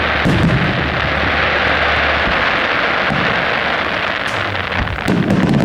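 Aerial fireworks: a dense, sustained crackling hiss from crackle shells bursting overhead, with booming shell bursts shortly after the start and again near the end.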